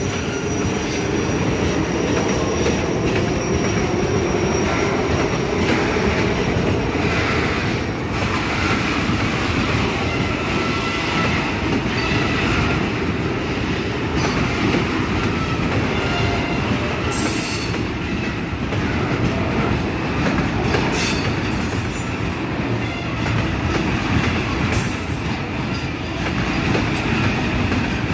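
Goods train of BTPN bogie tank wagons rolling past close by: a steady rumble of steel wheels on rail, with sharp clacks over rail joints now and then and a faint, thin wheel squeal.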